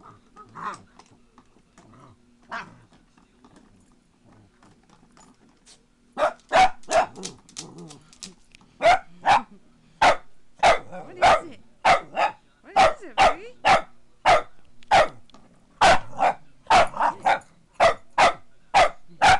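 Boston Terrier barking repeatedly, about two sharp barks a second from about six seconds in, at a running foot massager; the massager's steady low motor hum sounds beneath.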